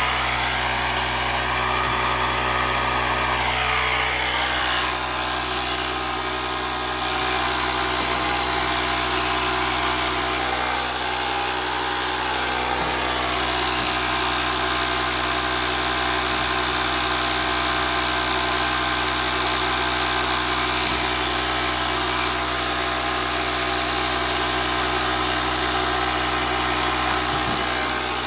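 Portable air compressor running steadily with a low, even hum, pumping air into a gas line through a gauge to pressure-test the piping for a leak.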